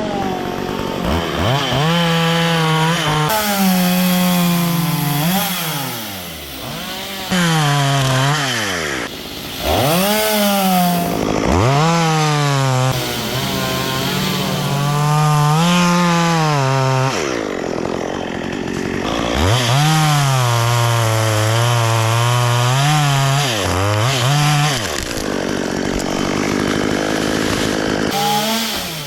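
Two-stroke chainsaw cutting wood, revving up to a high steady pitch and dropping back to idle several times.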